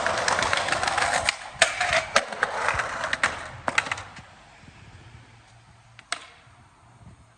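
Skateboard wheels rolling over pavement, with several sharp clacks of the board. The rolling fades away about four seconds in, and one more knock comes near the end.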